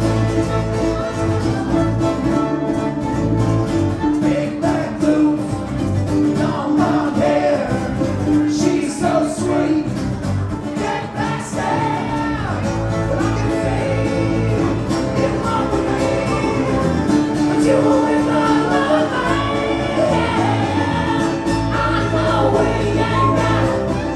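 A live acoustic band with fiddle and guitars playing an upbeat song, with two men singing.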